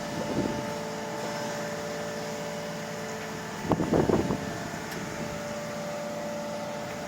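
Dynapac MF2500CS asphalt paving machine running steadily, a diesel hum with a few steady tones. A brief, louder clattering burst comes about four seconds in.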